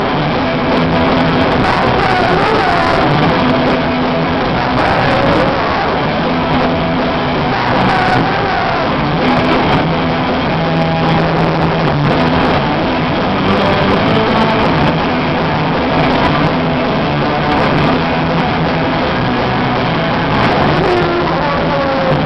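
Punk rock band playing live: electric guitars and a drum kit, loud and steady throughout.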